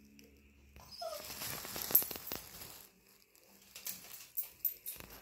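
A Shih Tzu gives a brief whine, followed by rustling and a few light clicks.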